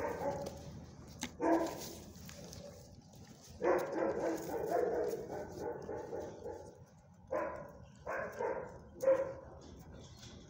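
A dog barking and vocalizing in short bursts, about six in all, with one longer drawn-out call of about two seconds near the middle.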